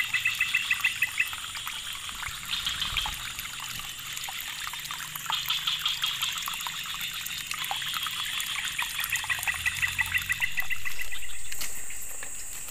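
Water trickling and flowing over a small drop in a rain-swollen ditch, with several runs of rapid, evenly pulsed chirping calls and a steady high-pitched drone. The water grows louder about ten seconds in.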